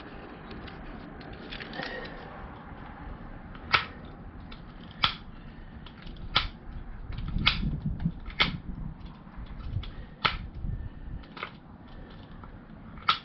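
Sharp clicks at uneven intervals, about eight of them a second or so apart, starting about four seconds in, over faint room noise, with a low handling rumble in the middle.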